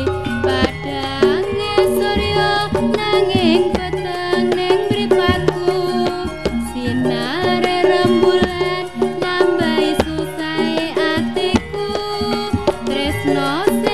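Music with a steady hand-drum beat under a melody that slides up and down in pitch.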